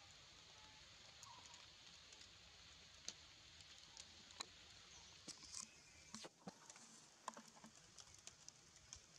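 Near silence: a faint outdoor background hiss with scattered soft clicks and ticks.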